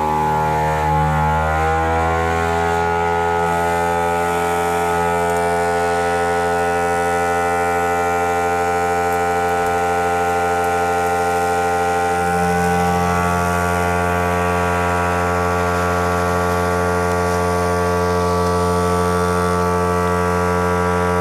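Vaquform DT2 vacuum former's vacuum pump and fan running with a loud, steady hum. The pitch rises a little over the first couple of seconds, then holds. This is the vacuum pull that draws the heated 0.5 mm HIPS sheet down over the mould.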